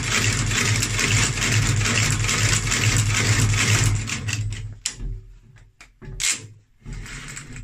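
Industrial sole-stitching machine running, stitching the outsole with a rapid, even clatter over a motor hum; it slows and stops about four seconds in. A few separate clicks and knocks follow as the machine is handled.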